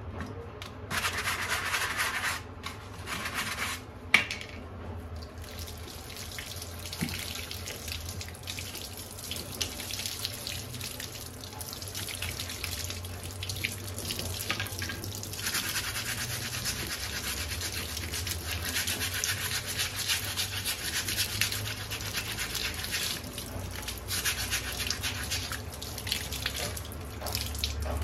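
A stiff plastic scrub brush scrubs a soapy vacuum-cleaner filter in a sink, then tap water runs and splashes over it while it is rinsed by hand. There is a single sharp knock about four seconds in.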